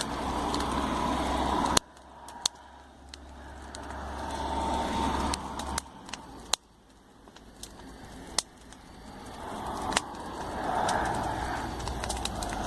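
Wood campfire crackling with scattered sharp pops while road traffic passes, the vehicle noise swelling and fading about three times and cutting off abruptly twice.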